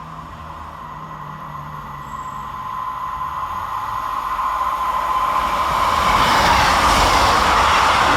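A train approaching through the station, growing steadily louder until its wheels and engine become a loud rush about six seconds in. A steady high whine comes first and is drowned out as the train arrives.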